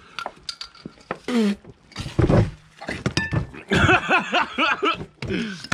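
A few sharp clicks and knocks from handling a plastic milk jug and its screw cap, then a man's voice through the last few seconds.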